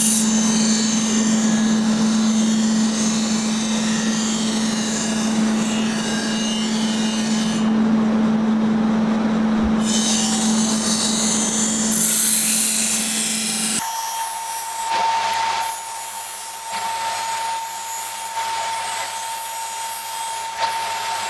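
Large powered grinding wheel running with a steady hum while a steel knife blade is ground against it, a dense grinding noise. About two-thirds of the way through, the sound changes to a higher steady whine with a series of short, repeated grinding strokes.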